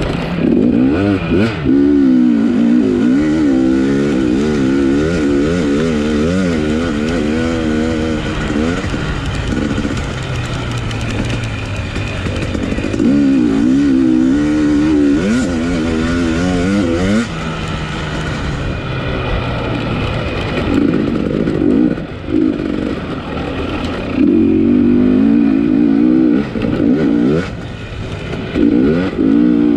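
Dirt bike engine under hard race throttle, its pitch wavering rapidly up and down, with short drops off the throttle every several seconds.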